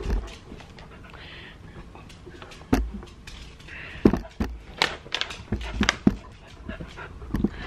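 Handling noise: a plastic treat bag rustling, with about half a dozen sharp knocks and thumps scattered through.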